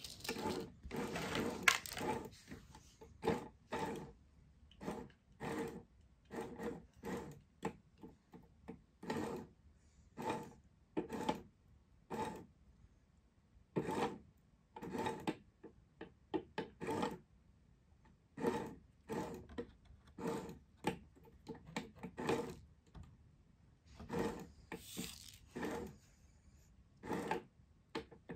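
Short scraping and rattling sounds, one every second or so and denser near the start, from kittens playing with a plastic electronic cat toy, pawing at it and at the feather that darts out from under it.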